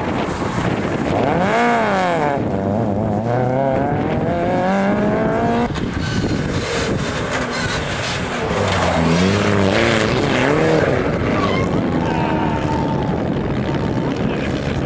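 Rally car engines revving hard, one car after the other: first a Peugeot 106 hatchback whose pitch swings up and down and then climbs steadily as it accelerates away, then, after a sudden cut about six seconds in, a Mitsubishi Lancer Evolution revving up and down through a hairpin.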